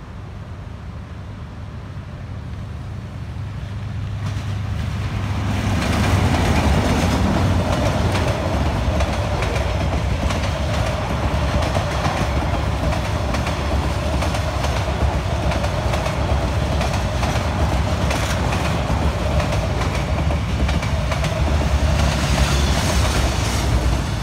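D19E diesel-electric locomotive approaching with a low rumble that grows louder. From about six seconds in the passenger carriages roll past close by, with a steady clickety-clack of wheels over the rail joints.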